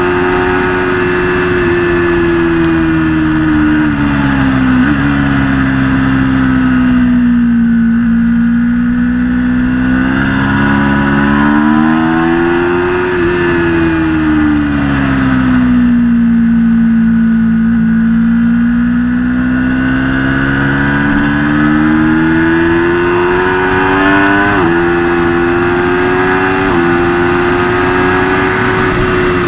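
Aprilia Tuono V4 motorcycle's V4 engine with an Akrapovic exhaust, ridden hard on track: the revs sink and climb smoothly over several seconds at a time, with quick shifts that drop the pitch about five seconds in and twice near the end.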